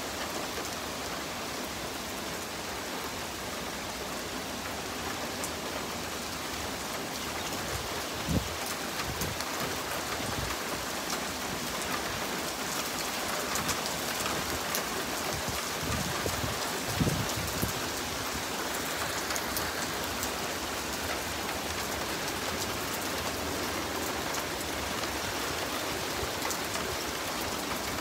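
Steady rain falling on a wet street, lawns and parked cars, an even hiss. A couple of short low thumps stand out, about eight and seventeen seconds in.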